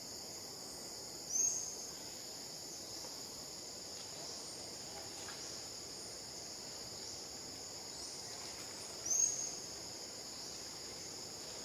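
Steady high-pitched drone of insects, with two brief louder chirps that rise in pitch, about a second in and again near the end.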